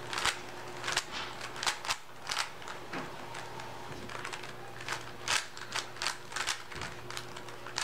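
Rubik's Cube being turned by hand: the plastic layers click as they are twisted, in an uneven run of sharp clicks, roughly two a second.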